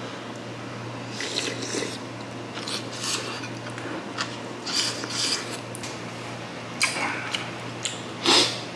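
Close-up mukbang eating sounds of hot sundae gukbap: a string of short chewing, slurping and breathing-out noises over the hot soup, then near the end sharper knocks as a wooden spoon scoops in the stone ttukbaegi pot, the loudest about eight seconds in. A low steady hum runs underneath.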